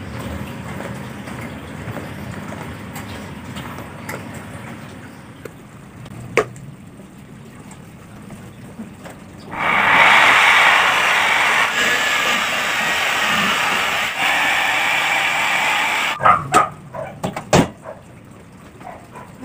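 Handheld electric polisher with a foam pad running steadily against a car bumper for about six seconds, starting abruptly about halfway through and then cutting off. A few short, sharp knocks follow.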